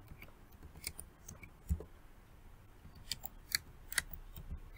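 Computer keyboard keys clicking faintly as a word is typed: scattered, irregular keystrokes.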